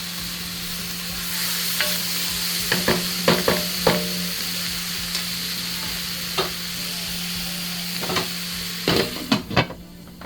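Stew ingredients sizzling as they fry in a pot, stirred with a utensil that knocks and scrapes against the pot a dozen or so times, over a steady low hum. The sizzling drops away near the end.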